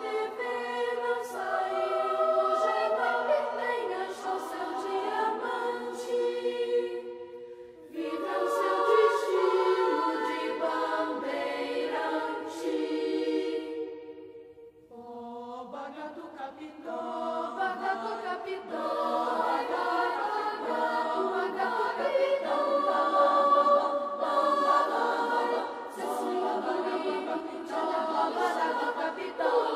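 Children's choir singing in several voice parts. There is a brief break about eight seconds in, and around fourteen seconds the sound dies away almost to nothing before the voices come back in and build up again.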